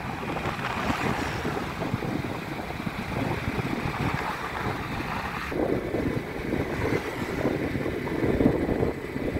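Wind buffeting the microphone while riding along a road on a moving two-wheeler: a dense, gusting rush with the low rumble of the ride beneath it.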